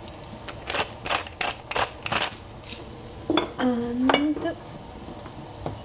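A quick run of sharp clinks and taps of utensils against cookware, about three a second for two seconds or so, followed later by a few single knocks.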